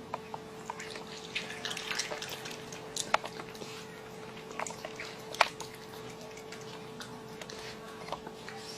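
Raccoon eating grapes: wet chewing and smacking with scattered sharp clicks, over a steady hum.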